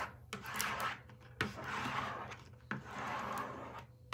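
Plastic squeegee scraping over transfer tape on a plastic bucket in three long strokes, each starting with a small click, pressing a vinyl decal down so it sticks before the tape is peeled away.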